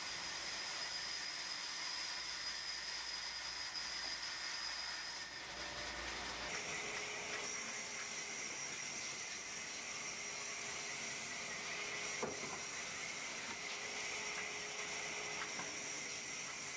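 Steady background hiss with faint, steady high-pitched tones running through it; the background changes about six and a half seconds in, and there is a single soft knock about twelve seconds in.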